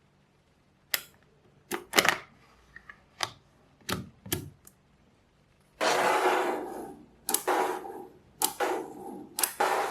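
Small magnetic balls clicking as they snap together: a handful of separate sharp clicks, then from about six seconds in several clattering rattles of about a second each as a cluster of balls is handled.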